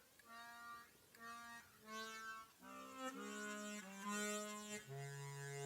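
Bass chromatic harmonica (Suzuki Sirius S48B) played through a Fender Micro Mustang amp with flanger and reverb. Two short notes are followed by longer held notes that step down in pitch, several of them sounding together from about halfway in.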